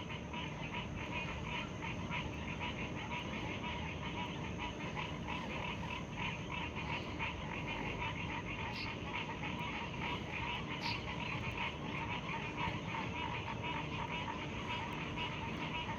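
A chorus of frogs calling, many fast pulsing trills overlapping into a steady din.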